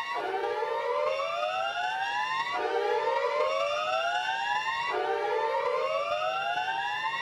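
Slowed-down Emergency Alert System alarm: a siren tone that rises steadily for about two and a half seconds, then drops back and climbs again, about three times, over a few faint steady high tones.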